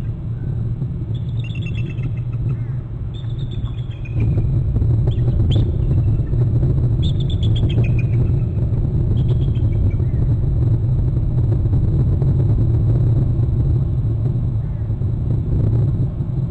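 Two bald eagles trilling: short series of high chirping notes that fall in pitch, repeated several times in the first ten seconds. A steady low rumble runs underneath and gets louder about four seconds in.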